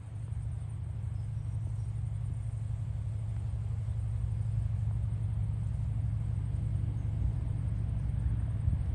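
TasRail TR-class diesel locomotives on a slow-moving freight train: a deep, steady engine rumble that comes up sharply at the start and grows slowly louder as the locomotives approach.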